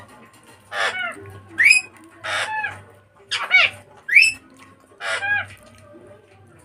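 Animal calls: six short, loud, high-pitched calls, one every second or so, some falling and some rising in pitch.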